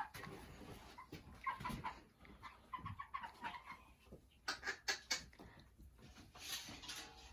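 A flock of four-week-old meat chickens making short, scattered calls, with a few sharp clicks about halfway through.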